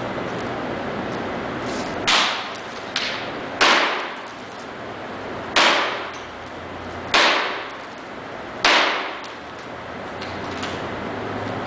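Hammer striking a foil-covered sculpture: about five sharp blows roughly one and a half seconds apart, each trailing off briefly, with a couple of lighter knocks between them, over steady background noise.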